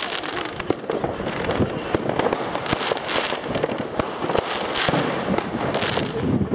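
Fireworks going off: a continuous dense rush of explosions with many sharp bangs and cracks scattered throughout.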